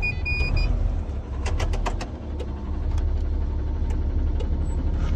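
Truck engine idling with a steady low rumble heard inside the cab. Two short high beeps right at the start, then a run of sharp clicks about one and a half to two seconds in as the heater control knobs are turned.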